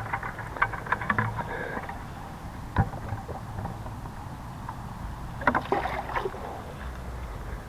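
Hands handling a fishing rod, line and a small just-caught perch: scattered light clicks and taps, with a sharper tap about three seconds in and a cluster about five and a half seconds in, over a steady low rumble.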